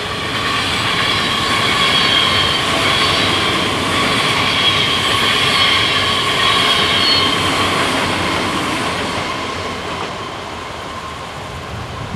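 NS ICMm 'Koploper' electric intercity train passing, its rolling noise carrying a steady high whine; it swells over the first couple of seconds and fades near the end as the last carriage goes by.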